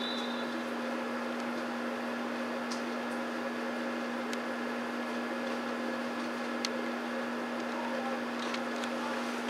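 A steady hum with a constant low tone over an even hiss, with a few faint ticks.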